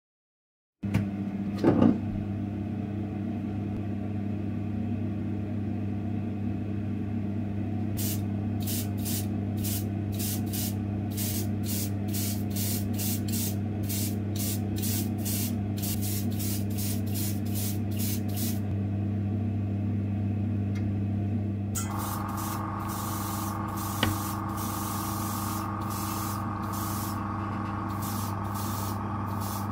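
Small spray booth's extraction fan humming steadily, with paint sprayed onto small diecast parts. From about eight seconds in the paint goes on in quick short bursts, about three a second. After a short pause the spraying returns as a denser hiss, still broken into bursts.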